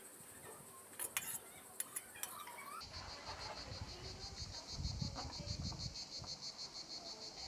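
Metal spoon clinking against the plate and pan as octopus in wine sauce is served, a few sharp clicks in the first three seconds. About three seconds in, a steady, fast-pulsing cicada chorus takes over, with some low rumbling near the middle.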